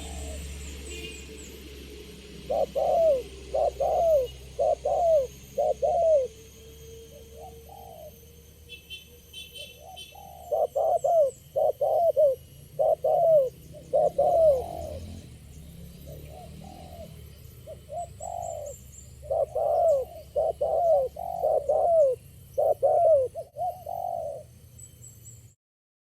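Spotted dove cooing: three series of repeated coos, each note dipping in pitch. The sound cuts off suddenly near the end.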